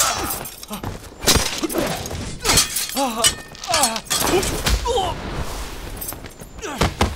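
Fight sound effects: a rapid series of hits and crashes with things breaking, mixed with short shouts and cries.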